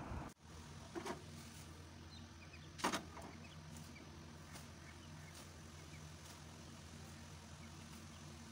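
Tea brewing at the boil in a small aluminium saucepan on a gas stove: faint bubbling and popping over a steady low hum. A light knock comes about a second in and a louder one near three seconds in.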